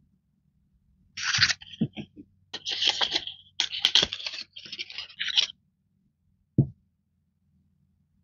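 Washi tape set packaging being handled and opened, crinkling and tearing in several bursts for about four seconds. A single knock on the desk follows near the end.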